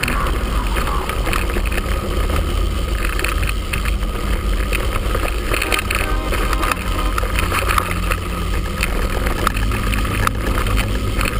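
Wind rumbling on the microphone of a handlebar-mounted GoPro as a mountain bike rolls down a rocky trail, with constant rattling and small knocks from the bike bouncing over stones.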